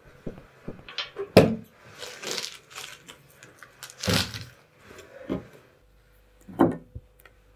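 Groceries being handled on a table: rustling of packaging and several sharp knocks. Near the end comes a thud as a tin can is set down on the tabletop.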